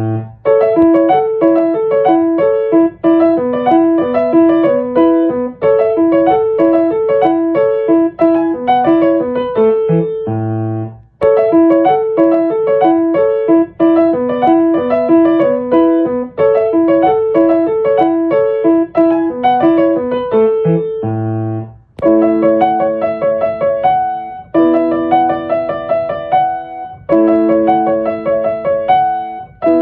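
Background music: a solo piano or electric piano playing a repeating melody in short phrases.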